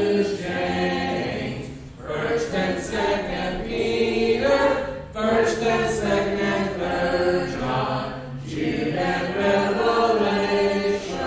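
A small group of voices singing unaccompanied, in phrases a few seconds long: the closing lines of a song that lists the books of the New Testament.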